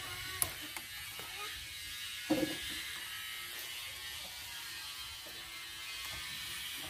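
A steady, faint ratchet-like buzzing, with a sharp click about half a second in and a short louder sound about two and a half seconds in.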